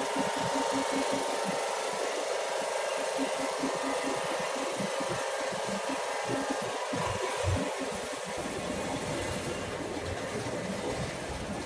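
Steady mechanical running noise from the vibration motors of a mud cleaner's shale shaker, easing slightly about eight seconds in.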